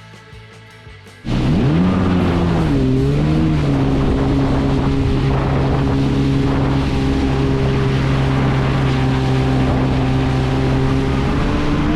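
Faint background music, then a sudden cut to a Sea-Doo jet ski's engine running loud at speed. Its pitch dips and rises a couple of times about two to three seconds in, then holds steady and climbs again near the end.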